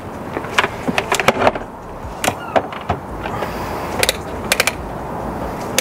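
A series of short, sharp clicks from handling a multifunction tester and its EV adapter lead at the charger while setting up RCD tests, over a steady background hiss.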